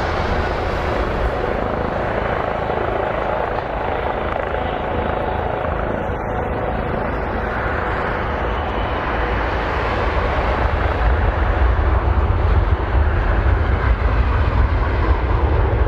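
Jet airliner engines running as a continuous rumble, growing louder and heavier about two-thirds of the way through.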